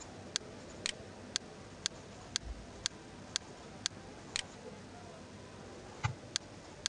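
Faint, sharp clicks at a steady pace of about two a second, pausing for a moment near the end, with one dull thump about six seconds in.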